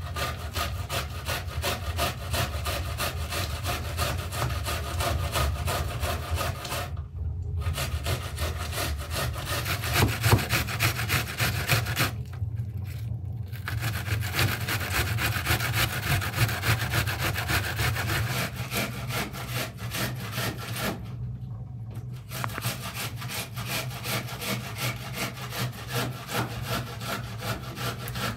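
An onion being grated by hand on a stainless steel box grater into a wooden bowl: rapid rasping strokes, with short pauses about 7, 13 and 21 seconds in.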